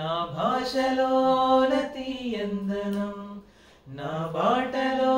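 A single voice singing unaccompanied in long held notes that glide between pitches, in two phrases with a short break about three and a half seconds in.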